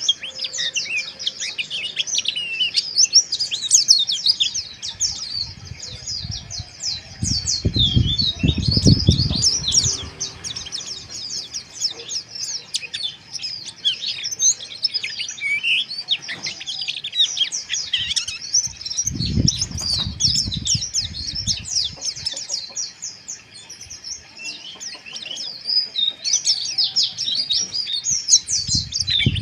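White-eyes (pleci) twittering continuously in a fast, dense, harsh chatter of overlapping short high chirps and trills. A low rumble comes and goes three times, about a quarter of the way in, around two thirds, and near the end.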